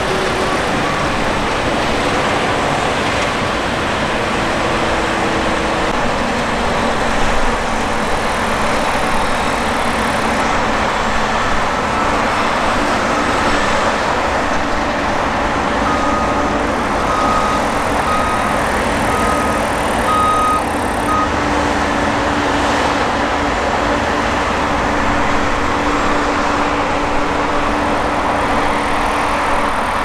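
New Holland CR twin-rotor combine harvesters running steadily while cutting and threshing rapeseed, a constant loud machine drone. A row of short, evenly spaced beeps, under one a second, sounds about two-thirds of the way in.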